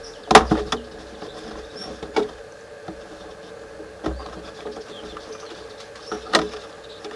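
Plastic Tupperware-style box lid being unclipped and lifted off: a quick cluster of sharp plastic clicks near the start, then single clicks and knocks about every two seconds as the lid comes free.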